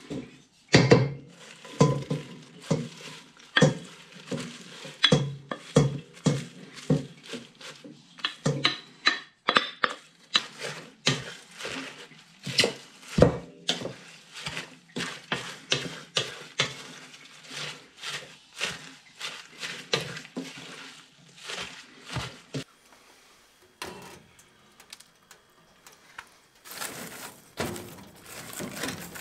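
Hard objects knocking and clinking together in a quick, irregular clatter, dozens of knocks over about twenty seconds, then it eases off into a quieter stretch with a couple of brief rushes near the end.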